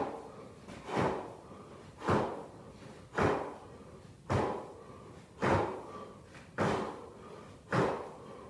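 Feet in sneakers landing on the floor during repeated jump squats: a thud about once a second in a steady rhythm.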